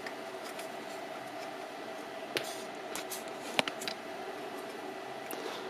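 Bomb release controller's stiff cocking lever being forced by hand: a few faint metal clicks and handling noises from the mechanism, the sharpest about three and a half seconds in, over a steady faint hum.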